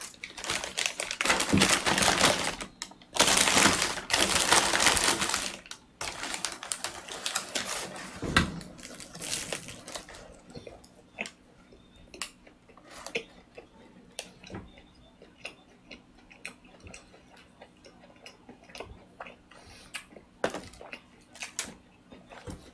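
Paper wrapping crinkles loudly in several long bouts as a chocolate-coated bread is pulled out of it. About ten seconds in, the crinkling stops and it turns to quiet chewing with small, scattered mouth clicks.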